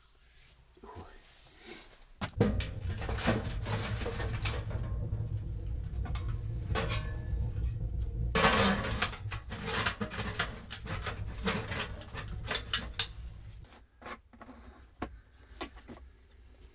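Wood fire in a metal barrel stove: a steady low rumble of the draft with sharp crackles and knocks, starting suddenly about two seconds in and stopping suddenly near the end. Quieter rustling and small knocks of handling come before and after.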